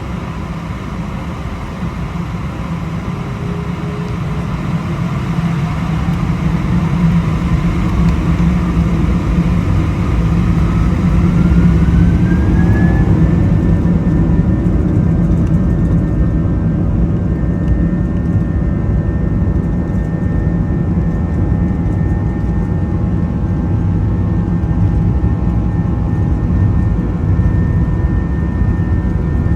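Airbus A319 jet engines spooling up for takeoff. A whine rises in pitch over about ten seconds and then holds steady at takeoff thrust, over a heavy low rumble.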